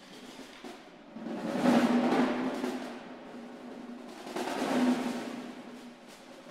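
Ensemble of snare drums playing a soft roll that swells twice into loud crescendos, the first about a second in and the second around four and a half seconds in, each dying back down.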